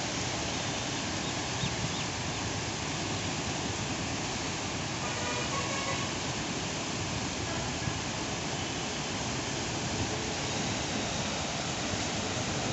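Steady rushing of the flooded Penna river as fast brown water churns past the railway bridge piers.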